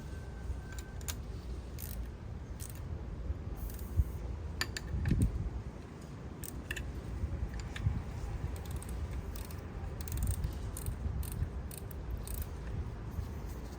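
Scattered metallic clicks and clinks of hand tools working on engine parts, with a sharp knock about four seconds in and a heavier clunk just after.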